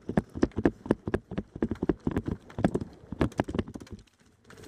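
Several airsoft guns firing cover fire: a rapid, irregular run of sharp cracks, several a second, stopping about four seconds in.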